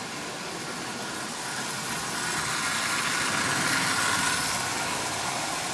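Marx M10005 toy streamliner locomotive's electric motor whirring steadily, its wheels rolling on the track at about half power. It grows louder toward the middle as the train comes closer, then eases off slightly. The freshly lubricated, roughly 80-year-old locomotive is running well.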